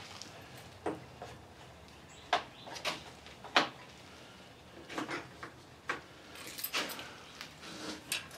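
Hand tools and small metal parts clicking and knocking, with a dozen or so separate short strikes spread out irregularly, as the carburetor and throttle linkage of a mini bike are taken apart.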